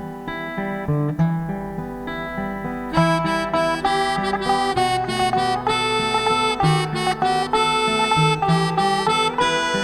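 Instrumental music: a melody of held notes over a bass line, the accompaniment filling out and brightening about three seconds in.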